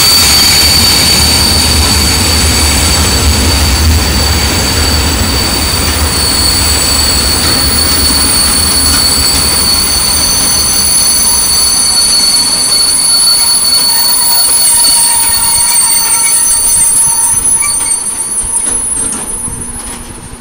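A freight train of side-tipping dump wagons rolling past slowly, its wheels squealing with several steady high-pitched tones over the rolling noise as the train slows. There is a low rumble for the first few seconds. The rolling noise and squeal die away near the end as the wagons come almost to a stop.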